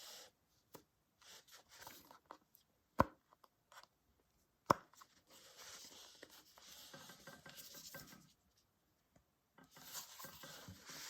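Faint handling of the MagSafe magnet ring cut out of a leather iPhone case as it is set against the back of an iPhone: two sharp clicks, under two seconds apart, as it snaps on, then soft rustling and scraping as it is handled.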